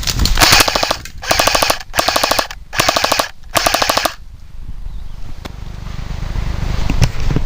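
Airsoft guns firing on full auto in five short, rapid bursts, stopping about four seconds in.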